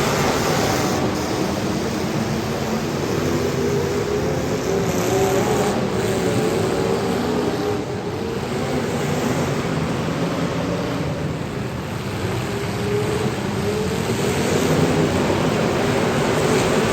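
Several demolition derby cars' engines running and revving together: a steady, loud din whose pitch wavers up and down.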